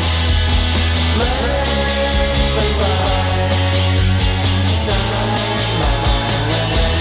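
Rock music with distorted guitars, a heavy sustained bass line and chord changes about every second or two.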